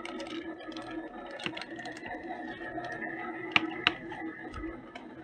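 Steady mechanical whirring, like a toy vehicle's small electric motor and gears running, with two sharp clicks a little past halfway.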